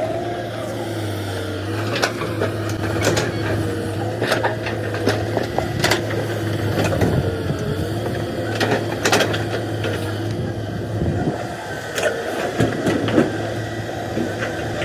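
Excavator at work: its engine runs steadily under a hydraulic whine that wavers up and down in pitch, with scattered knocks and clanks from the bucket and the material being loaded.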